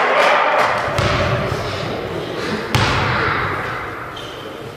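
Basketball bouncing on a gym floor: two heavy thuds about a second and three-quarters apart, echoing in a large hall, over a background of indistinct gym noise.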